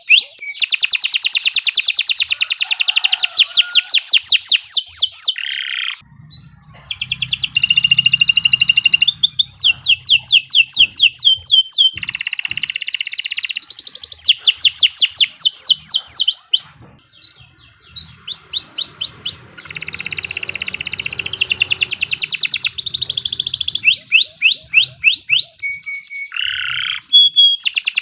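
Domestic canary singing a long, loud song of fast trills, each made of repeated down-sweeping notes. The song switches from one trill to the next every few seconds, with short pauses about six and seventeen seconds in.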